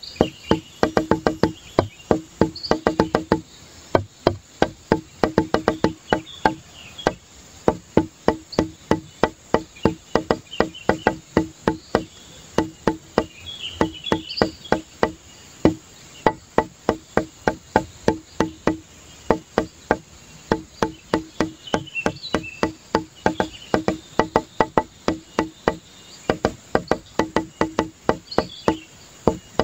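Background music built from a quick, even run of wood-block-like knocks, several a second, in phrases broken by short pauses, with faint high chirps over it.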